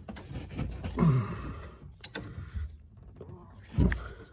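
A man grunting with effort twice while forcing a tight 18 mm rear brake caliper bolt loose with a hand wrench, with a few sharp metallic clicks from the tool.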